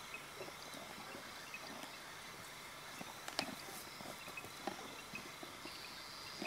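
African wild dogs feeding at an impala kill: scattered faint snaps, tearing sounds and short low grunting calls. A faint high steady tone comes in near the end.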